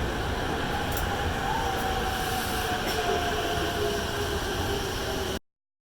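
Musashino Line train running through the station: a steady rumble with a faint whine slowly falling in pitch. The sound cuts off abruptly near the end.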